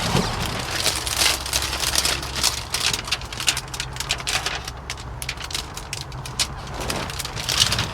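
Irregular crackling and rustling of plastic window tint film being handled and positioned against wet glass, over a steady low hum.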